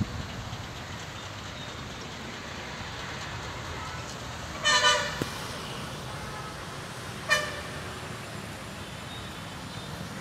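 Road traffic running steadily, with a vehicle horn honking twice: a longer blast about halfway through and a short toot a few seconds later.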